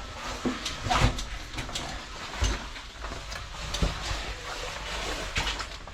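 Irregular knocks, clicks and scrapes, a second or so apart, over a steady low rumble: the sound of people moving and handling climbing gear.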